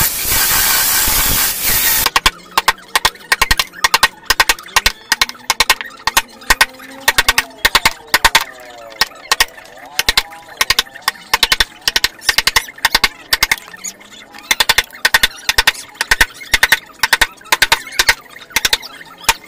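Chainsaw cutting into wood, cutting off suddenly about two seconds in; then a hammer striking a wood chisel over and over, several blows a second in bursts, chopping out a recess in a mahogany board.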